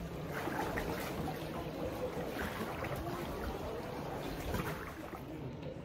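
Water lapping and trickling around a paddled sea canoe gliding through calm water, with small splashes and drips.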